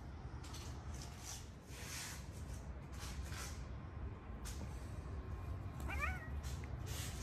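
A domestic cat meows once, briefly, about six seconds in, amid short rustling noises.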